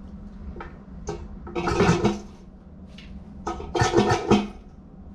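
Toilet being flushed: water rushes and gurgles in surges, the largest about two seconds in and again about four seconds in, over a low steady hum.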